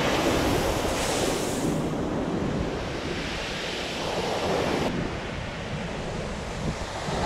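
Ocean surf breaking and washing up a coarse pebble beach, a steady rushing roar, with wind rumbling on the microphone.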